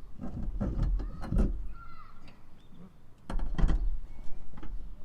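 A truck's driver seat being heaved and rocked to lift it out of the cab, with thumps, knocks and rattles of the seat frame in two bouts. The second bout starts about three seconds in and is louder. The seat is snagged on a wiring harness that is still attached.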